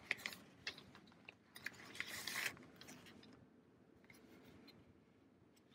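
Faint rustling and sliding of plastic-bagged comic books being handled, with a few light clicks and a longer scraping rustle about two seconds in.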